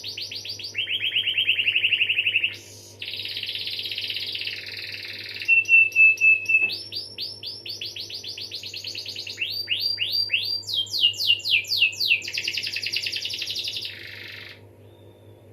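Domestic canary singing a long song of fast rolling trills, switching to a new trill every second or two, over a low steady hum; the song stops near the end.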